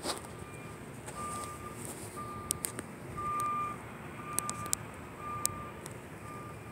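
A vehicle's reversing alarm beeping about once a second, one steady pitch per beep, over a low steady background noise, with a few sharp clicks in between.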